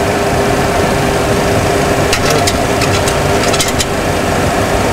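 Steady background noise on a Boeing 737 Classic flight deck: a constant rush of air with a low machinery hum. A few light clicks, as of buttons being pressed, come about two seconds in and again around three and a half seconds in.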